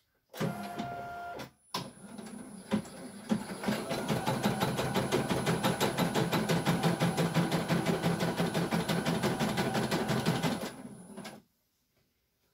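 CNY E900 computerized embroidery machine starting with a short steady tone, then stitching. Its needle strokes speed up to a fast, even rhythm that runs for about seven seconds and stops abruptly about eleven seconds in.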